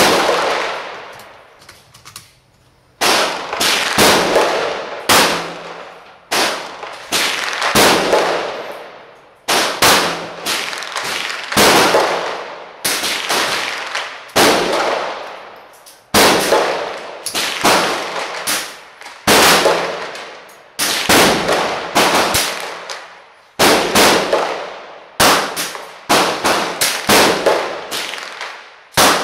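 Ruger 10/22 .22 rimfire semi-automatic rifle fired in a long string of quick shots, roughly one every half second to a second and a half. Each sharp report echoes and dies away before the next.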